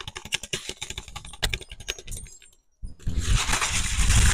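Clear plastic clamshell food container crackling and clicking as it is handled right up against the microphone for ASMR: a quick run of small clicks, a short break about two and a half seconds in, then a loud close rustling rub.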